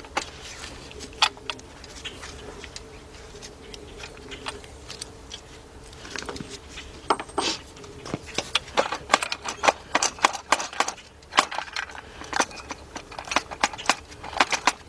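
Irregular metallic clicks, clinks and knocks of metal parts and hand tools being handled, sparse at first and much busier in the second half.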